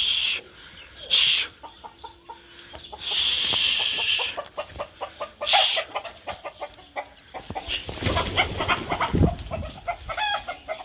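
A domestic rooster clucking in a run of short calls, mixed with several short, loud rushing bursts in the first half.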